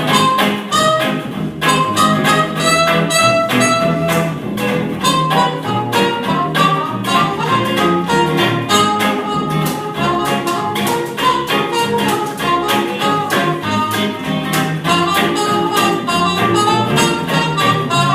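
1930s-style jazz music with a steady beat, with strings, guitar and double bass among the instruments.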